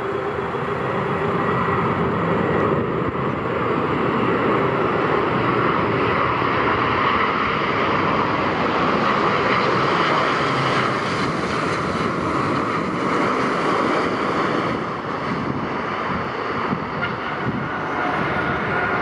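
Airliner engines running: a loud, steady rush with a whine held through it, with no marked swell or fade.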